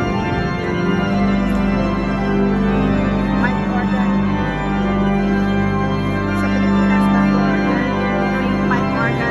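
Giant cathedral pipe organ playing full sustained chords over a deep bass, with one strong note held for most of the passage.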